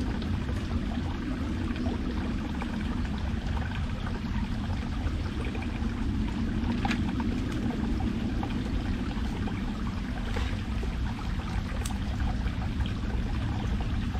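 Small forest stream running steadily, with a few faint ticks over it.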